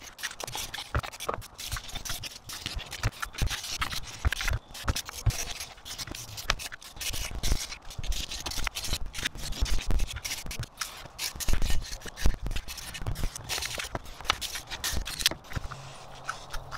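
Brass wire brush scrubbed hard and fast over an old, rusty brake caliper to clean off rust and brake dust before painting: a rough, rapid scratching and scraping of bristles on metal, with sharper clicks along the way. It stops near the end.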